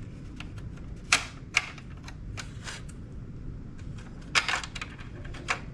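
Small hard parts of a cassette deck clicking and clacking as they are handled and fitted, about six sharp clicks spread irregularly over a few seconds, over a low steady hum.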